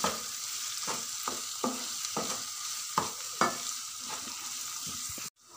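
Minced mutton and liver sizzling in oil in a nonstick frying pan while a wooden spatula stirs it, scraping the pan in repeated short strokes, as the ground spices are fried in. The sound cuts off abruptly near the end.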